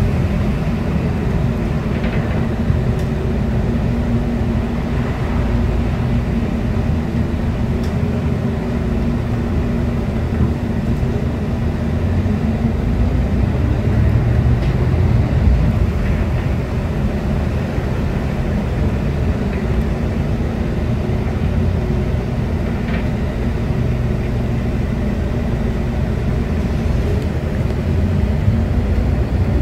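Volvo B8RLEA articulated bus's Volvo D8K six-cylinder diesel engine running as the bus drives along, heard from inside the passenger cabin. It makes a steady low drone with a fainter wavering tone above it.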